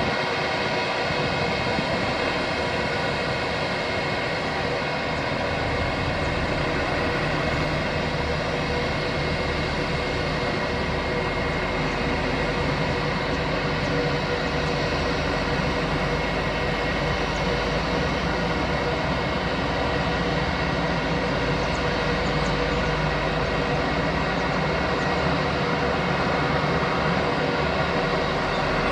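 Airbus A319 airliner's turbofan engines at idle as it taxis onto its stand: a steady whine made of several fixed tones over a low rumble.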